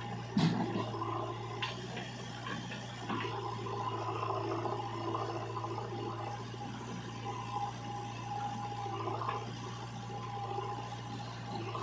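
Diesel engine of a JCB 3DX backhoe loader running steadily under a rushing, sloshing noise, with a single clunk about half a second in.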